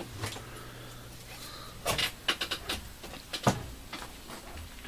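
Scattered sharp clicks and knocks from objects being handled: a quick cluster about two seconds in and a sharper single knock about three and a half seconds in.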